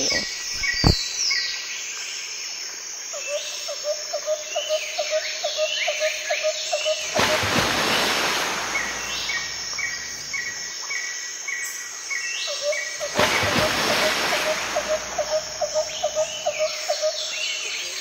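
Birds calling and insects chirping, including a pulsing chirp about six times a second. Twice, a couple of seconds of loud rushing noise cuts in and stops abruptly.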